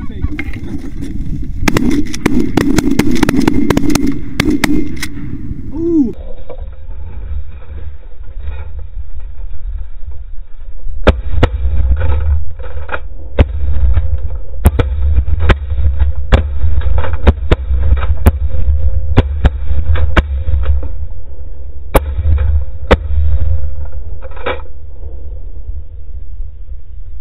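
Shotguns firing at geese flying over the decoys: a run of sharp cracks, loudest in the first few seconds and again through the middle, over heavy wind rumble on the microphone. A few geese honk at the very start.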